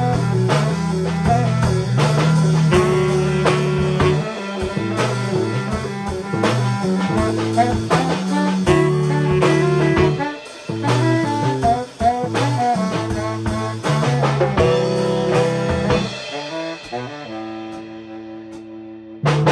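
Small jazz combo playing: baritone saxophone over electric bass, piano and drum kit. From about three-quarters of the way through the playing gets quieter, the drums and cymbals dropping away and leaving held notes, until the full band comes back in at the very end.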